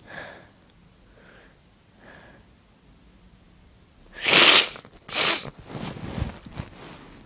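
A person's sneeze building up: a few short, faint catching breaths, then two loud sneezes about a second apart, followed by several smaller breathy sniffs and breaths. It is a sneeze that had been slow to come and is finally released.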